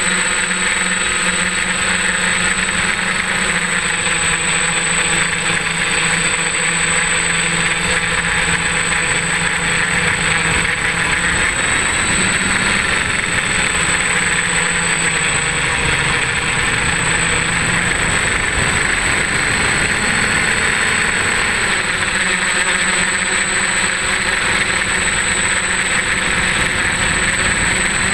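F550 hexacopter's six electric motors and propellers buzzing steadily in flight, heard up close from the camera on the frame. The pitch of the hum shifts a little now and then, over a steady high whine.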